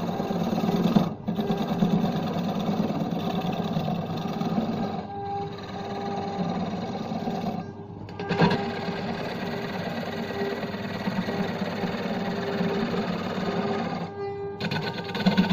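Belt-driven wood lathe running while a hand-held gouge cuts into a large spinning wooden disc: a rough, steady cutting noise over a constant hum. The sound breaks off briefly about four times.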